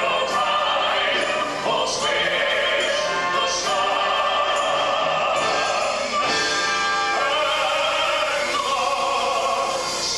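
Operatic-style singing over instrumental accompaniment, with long held notes.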